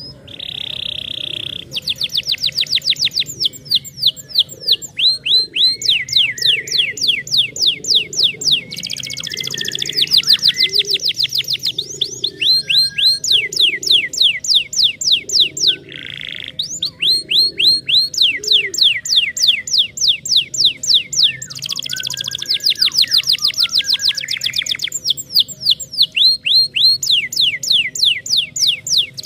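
Domestic canary singing a long song of rapid trills. Each trill is a fast run of quick, falling notes, and the phrases change speed and pitch every second or two with only brief breaks.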